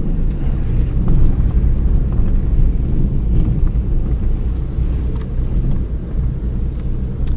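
Car cabin noise while driving over a rough gravel road: a steady low rumble of engine and tyres, with a couple of light knocks from the bumps.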